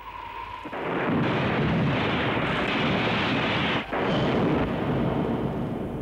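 Loud rumbling, blast-like noise of a bird-strike test as a fired bird smashes into an aircraft cockpit canopy. It runs for several seconds, breaks off briefly about four seconds in, then fades.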